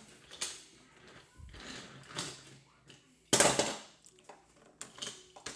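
Small die-cast toy train engines clicking and clattering against plastic toy track as a child pushes and moves them about, with a louder clack about three seconds in.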